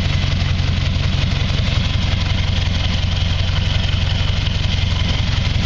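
Hot rod's engine idling steadily with an even exhaust beat, on its first start after sitting all winter.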